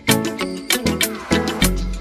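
Background music with a steady beat: drum hits and bass notes.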